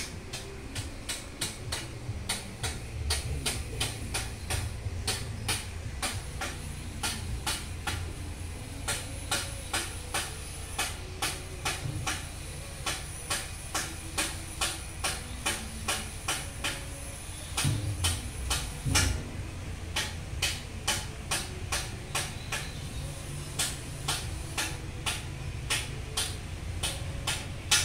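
A machine running, a steady low rumble with sharp clicks repeating about two to three times a second. A few heavier thumps come about two-thirds of the way through.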